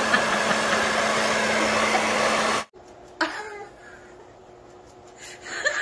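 A loud, steady motor whir with a constant hum, like a household electric appliance running, cutting off abruptly a little under three seconds in. After that there is only faint background sound, with a brief sound shortly after and another near the end.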